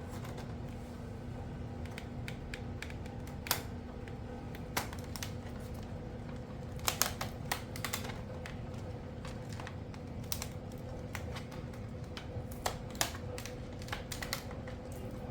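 Irregular small clicks and taps of hands working plastic Kato Unitrack N-scale track sections and bits of scenery on a layout, over a steady low hum.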